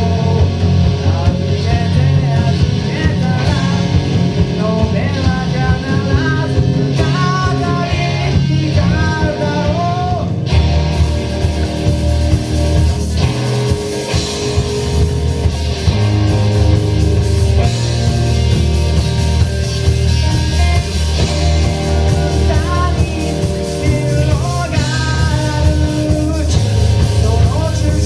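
A rock band playing live, with a singer over electric guitar, bass and drums. The vocal line drops out for a stretch in the middle, where the band plays on with a heavier bass.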